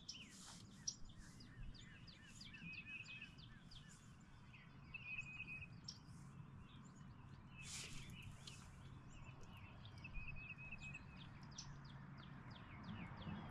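Faint wild birdsong: many short high chirps and a repeated quick trill that comes back several times. There is a brief hiss about eight seconds in and a faint steady low hum underneath.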